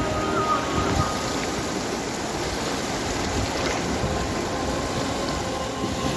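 Swollen, muddy flood river rushing fast past the bank, a steady noise of churning water.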